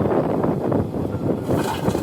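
JCB 3DX backhoe loader's diesel engine running steadily under load. A harsher, brighter noise joins near the end.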